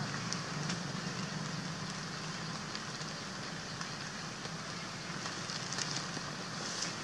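Steady outdoor background noise: a low, even hum with light, scattered crackles and ticks over it.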